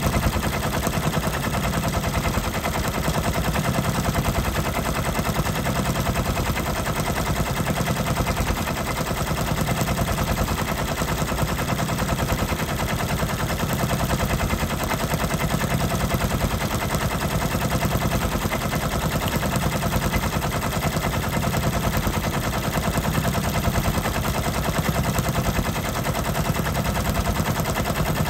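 Brother embroidery machine stitching at speed, its needle bar running a rapid, steady clatter of needle strokes as it sews the satin fill of a rose design.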